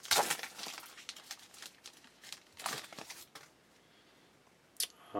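A baseball card pack wrapper being torn open and crinkled in a few bursts: the loudest at the start and another about two and a half seconds in, with a short tick near the end.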